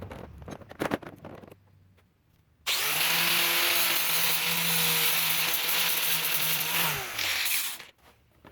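A few handling clicks, then about three seconds in an angle grinder starts and grinds metal: a loud, steady hiss over the motor's even tone for about four seconds. It is then released and spins down with a falling whine.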